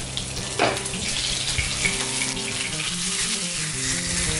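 Salmon and threadfin fillets frying skin-side down in hot oil in a pan, a steady sizzle, with a single sharp knock about half a second in.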